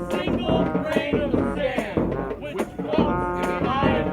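A live street band playing, with pitched melody lines over rattling, shaken percussion.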